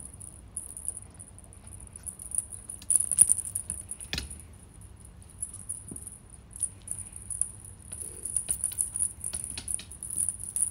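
A kitten's beaded wand toy rattling and jingling as the kitten bats and grabs at it, with sharp clicks and taps, the loudest about three to four seconds in.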